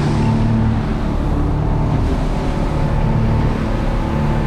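A sportfishing boat's engines running steadily underway while trolling, heard from inside the cabin as an even drone with a few steady low hum tones.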